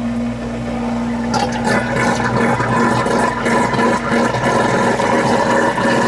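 Flotec submersible sump pump running with its float lever held up by hand: a steady motor hum, joined about a second in by a loud rush of water as the pump pushes water out of the pit.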